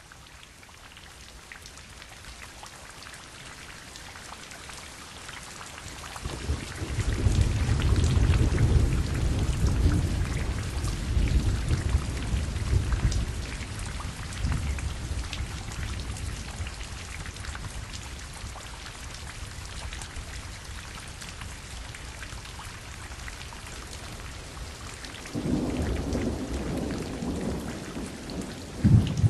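Steady rain with rolling thunder. A long low rumble builds about six seconds in and dies away slowly over several seconds, another rumbles near the end, and a sharp thunderclap cracks just at the close.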